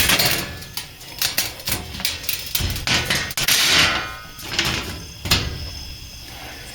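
Irregular clatter of knocks and clicks mixed with rustling, scraping noise, with the longest scrape about three and a half seconds in.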